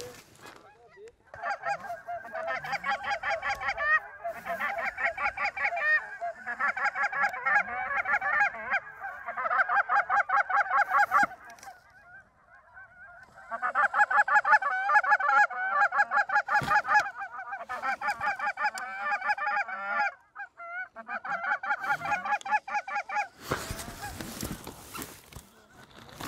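Canada goose honks and clucks, rapid and closely spaced, in long runs broken by short pauses and stopping a few seconds before the end. A steady rushing noise follows.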